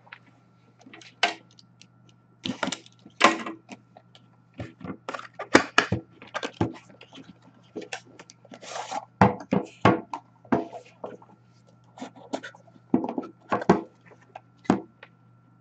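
Cardboard and plastic packaging of a hockey card box being opened and handled: an irregular series of clicks, taps and short rustles.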